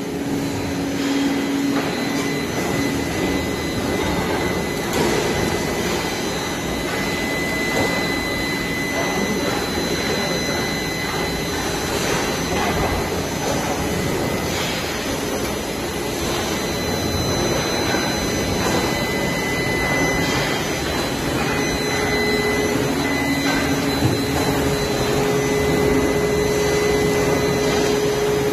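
Automatic stainless steel sink welding machine running, a steady hissing, whirring machine noise with faint high tones that come and go.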